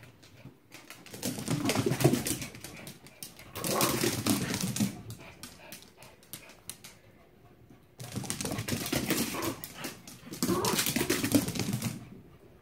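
A corgi running and scrabbling across a hard vinyl floor, its claws clicking rapidly and paws thudding, in four loud dashes: two in the first five seconds and two in the last five.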